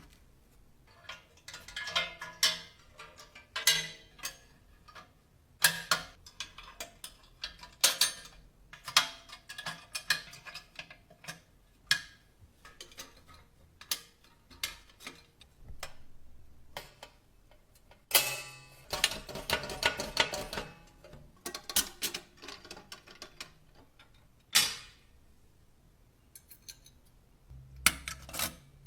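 Irregular clicks, knocks and light rattles of small metal parts of a vintage mechanical cash register being handled and worked on, with a longer rattling stretch about two-thirds of the way through.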